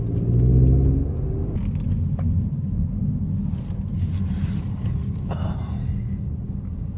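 Car engine running while driving, louder with a pitched drone for the first second and a half as it pulls, then a steady low rumble.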